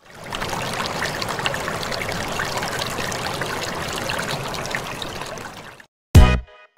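Intro sound effect: a steady rushing, trickling noise that swells in at the start and fades out about a second before the end. A loud musical beat hits just before the end.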